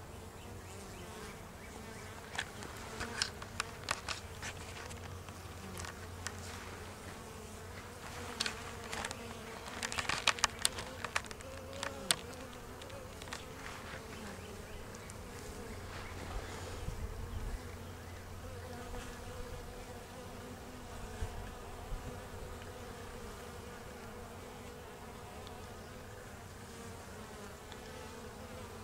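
Honey bees buzzing at a hive entrance, a steady hum. Scattered sharp clicks, clustered about a third of the way in, stand out above the hum.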